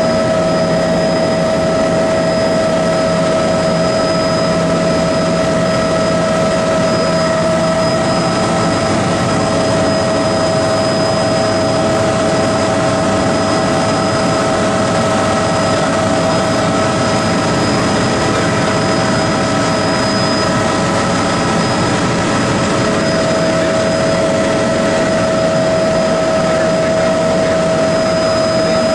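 Small aircraft in flight, heard from inside the cabin: a steady engine and airflow drone with a constant whine over it.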